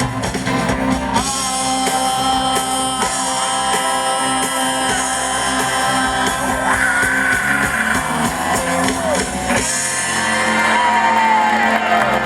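Live soul and rock-and-roll band playing, with lead vocals and shouts over the band. Near the end the bass and drums drop away while the vocal line carries on.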